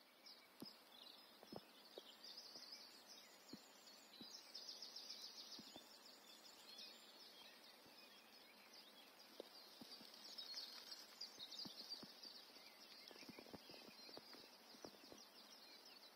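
Faint outdoor nature ambience: a continuous chorus of rapid high-pitched chirping, with scattered soft ticks.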